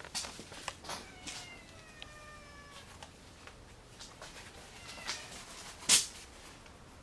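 A domestic cat meowing: one long, drawn-out meow that falls slightly in pitch, and a shorter meow later. Scattered light clicks, and a sharp knock near the end that is the loudest sound.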